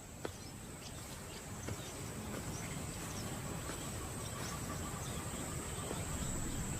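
Wild outdoor ambience: insects keep up a steady high trill over a low background rumble that slowly grows louder, with a single faint click just after the start.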